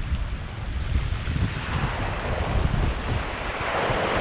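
Surf washing over shoreline rocks, with wind buffeting the microphone in a steady low rumble; the hiss of the water swells up about halfway through.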